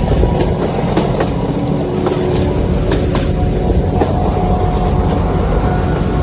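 Nilgiri Mountain Railway train running: a steady rumble with irregular clicks of the wheels over rail joints and a faint, steady whine.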